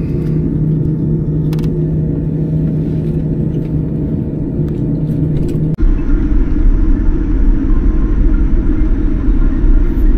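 Boeing 787 Dreamliner cabin noise while taxiing after landing: a steady engine hum with a couple of held tones. About six seconds in it cuts abruptly to a louder, deeper rumble.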